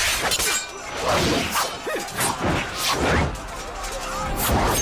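Fight-scene sound effects: a quick, irregular run of whooshes and hard impacts, about ten strikes in under five seconds.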